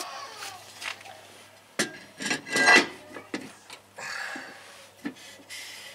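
Rear brake drum on a 2014 Jeep Patriot being slid over the brake shoes onto the hub: metal rubbing, scraping and light clinks, with the loudest scrape about two seconds in.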